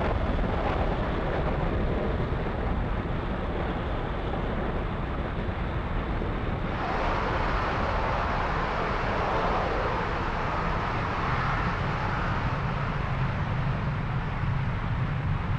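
Falcon 9 first stage's nine Merlin 1D engines giving a steady, deep rumble as the rocket climbs after liftoff. The sound turns hissier about seven seconds in.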